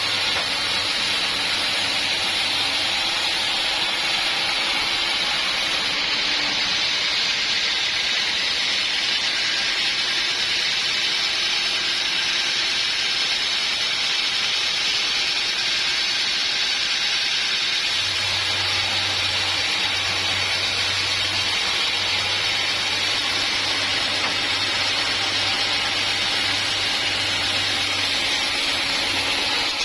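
Sawmill blade cutting through an acacia log: a steady, hissing rush of cutting noise with a low motor hum under it that grows stronger in the last third.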